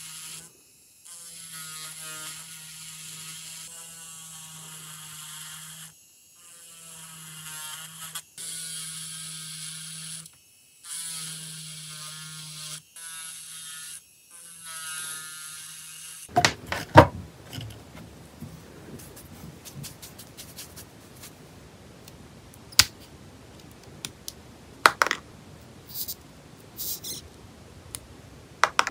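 Handheld electric nail drill running as its bit grinds gaps around the rhinestone parts on gel nails, as a steady hum that stops and starts about six times. From about sixteen seconds in, sharp clicks and snaps from nippers prying and clipping the stones and gel off the nails.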